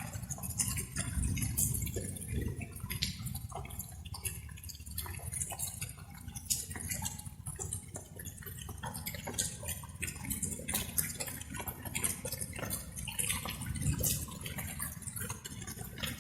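Light rain with large drops falling and dripping irregularly, many separate drops a second, over a steady low rumble.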